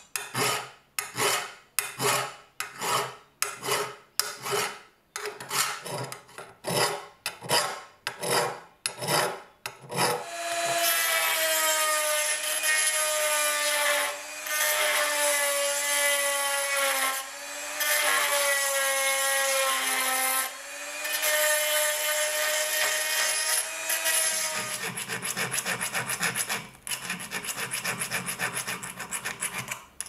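Hand filing of steel, about two long strokes a second, for roughly ten seconds. Then a small rotary tool grinds inside the slot of the axe head's nail puller with a steady whine that sags in pitch three times as it is pressed in. Near the end a small file rasps quickly back and forth in the slot.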